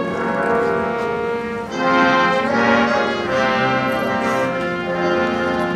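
Brass band playing a slow piece in sustained chords, the held notes changing every second or so.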